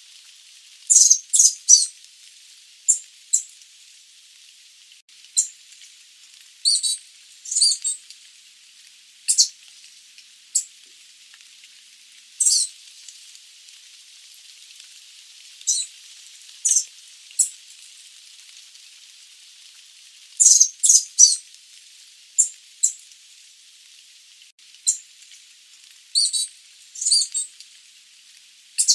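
Sooty babbler (Stachyris herberti) giving short, high call notes, often in quick clusters of two or three, repeated every few seconds over a steady background hiss.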